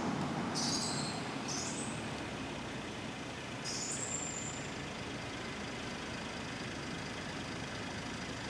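A steady rushing background noise, like distant traffic, with a few short, high-pitched bird calls in the first half.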